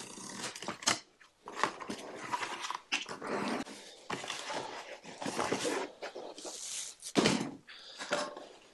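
A corrugated plastic sign being cut with a utility knife and handled: irregular scraping and rustling of the plastic.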